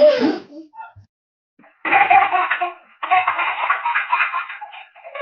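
A baby laughing: a short burst at the start, then after a pause of about a second and a half, two long runs of breathy, repeated giggling.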